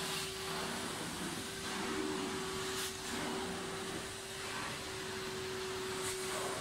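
Carpet-cleaning extractor's vacuum running steadily through the hose and floor wand: a rushing suction hiss with a steady humming tone.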